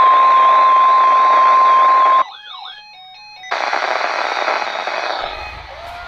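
NOAA Weather Radio 1050 Hz warning alarm tone received on the radios over static hiss, with a high warbling alert siren from one of the weather radios over it, about two and a half warbles a second. Both stop abruptly about two seconds in. A few short gliding beeps follow, then the radio static hiss comes back and slowly fades.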